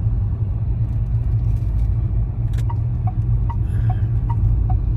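Car cabin road and engine rumble while driving. From a little past halfway, an indicator ticks in an even two-note tick-tock, about two or three ticks a second.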